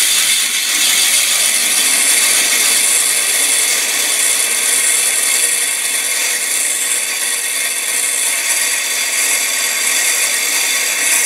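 Abrasive disc on an angle-grinder gearbox, spun by a hand-cranked drill, cutting into a steel hacksaw blade: a steady grinding that stops at the end.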